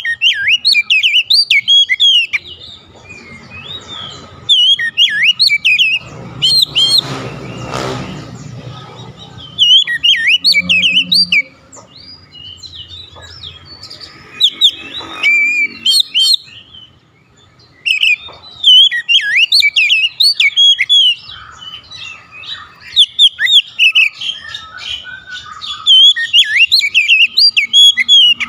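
Oriental magpie-robin singing hard: long phrases of fast, varied whistles and chirps with short pauses between them. A dull low rumble swells briefly behind the song about seven seconds in.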